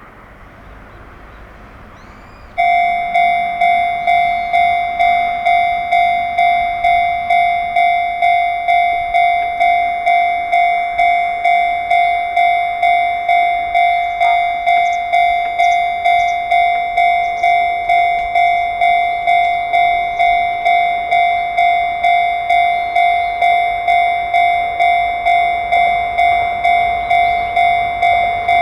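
Japanese level-crossing warning bell sounding the electronic Chichibu Railway 'Chichibu tone', starting about two and a half seconds in and repeating a steady ding just under two times a second, with a faint background hum before it starts.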